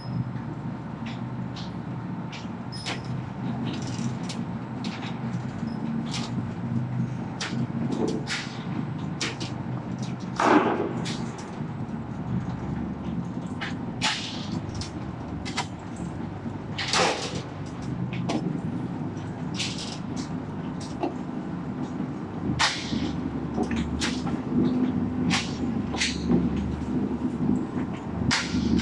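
Highway guardrail roll forming machine running: a steady motor and drive hum with frequent metallic clicks and knocks as the punched steel strip feeds through the forming rollers. Brief louder metallic screeches stand out about ten and seventeen seconds in.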